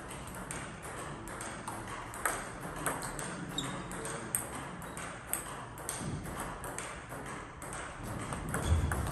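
Table tennis ball clicking sharply and irregularly off paddles and tables, a steady scatter of hard ticks, with a rally starting near the end and a low thump of a player's shoe on the floor.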